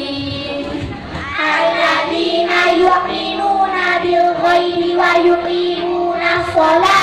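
A child singing a melodic chant into a hand-held microphone, amplified over loudspeakers, in long held notes that grow louder from about a second in.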